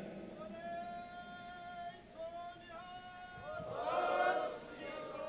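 Faint, long-held pitched tones with a singing quality: a few sustained notes, and a louder, wavering swell about four seconds in.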